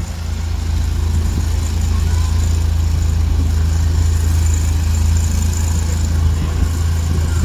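Engine of an eight-wheeled amphibious ATV running as it drives through river water, a steady low drone that holds an even pitch and level.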